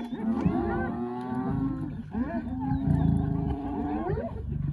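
Lions growling over a kill as they feed: two long, drawn-out moaning growls, each bending upward at its end, over a low rumble.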